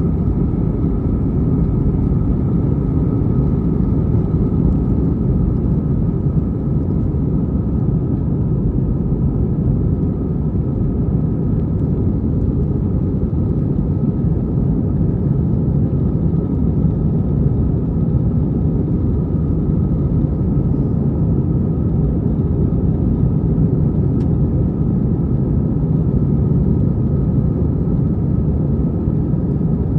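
Steady jet airliner cabin drone: engine and airflow rumble heard from inside the passenger cabin, with a faint steady whine over it.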